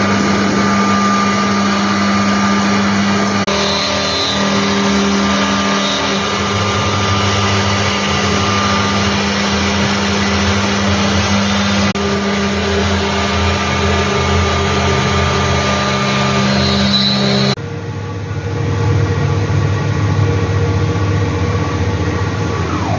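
CNC machine running with a steady mechanical hum that shifts a couple of times. Its higher-pitched part drops away suddenly near the end.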